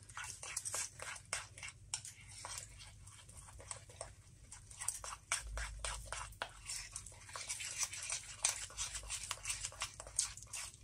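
Metal spoon stirring flour and milk into a thick paste in a ceramic bowl: rapid, irregular clicks and scrapes of the spoon against the bowl.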